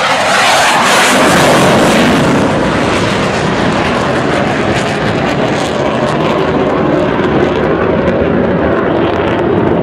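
Twin-engine F-18 jet fighter flying past overhead: loud jet noise, loudest about a second in, then a steady rumble as it flies away.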